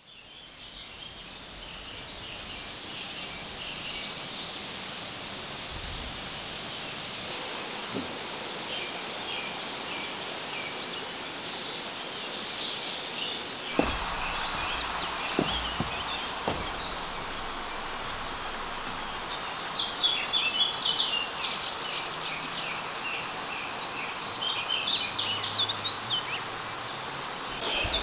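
Outdoor countryside ambience that fades in at the start: birds chirping and singing over a steady background hush, with a few dull knocks around the middle.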